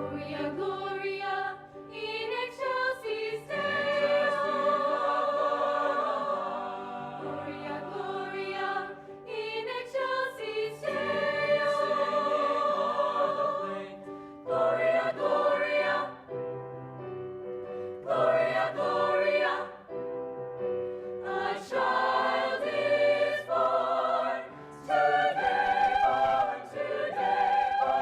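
Concert choir singing a Christmas carol in parts, in long sustained phrases with brief breaks between them.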